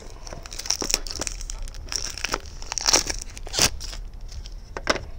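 Clear plastic shrink-wrap being torn and crumpled off a small cardboard product box: an irregular run of crinkles and crackles, loudest about three seconds in.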